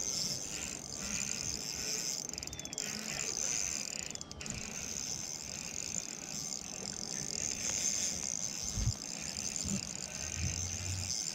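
Spinning reel being cranked steadily, a high whirring from its turning rotor and gears, as a hooked fish is reeled in. A couple of low thumps of handling come near the end.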